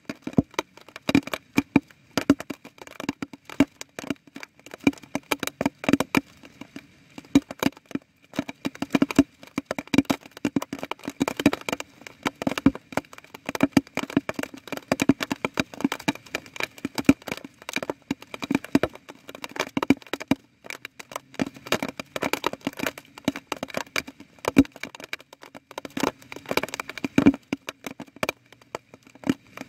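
Raindrops falling, heard as a dense, irregular patter of sharp taps and clicks, several a second, each with a slight ring.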